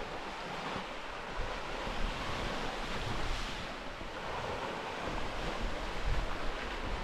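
Small waves washing onto a stony shore in a steady, gently swelling hiss, with wind gusting on the microphone.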